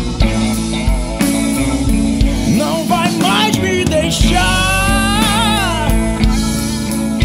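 Rock music from a band with drums and guitars. Around the middle a lead line slides between notes and wavers with vibrato, with no sung words.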